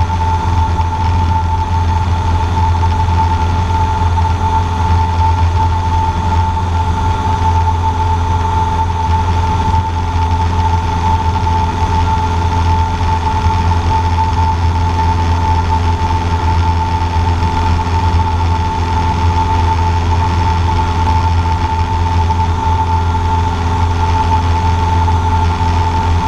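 Cessna 150J's Continental O-200 engine and propeller droning steadily in flight, heard from inside the small cockpit, with a steady high-pitched whine over it.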